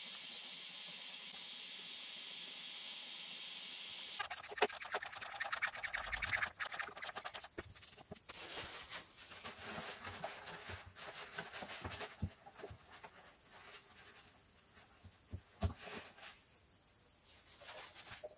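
A steady hiss for about four seconds that cuts off suddenly, then scattered clicks, knocks and paper rustling as the oil filter housing cap is worked loose with a socket and the housing is wiped with a paper towel.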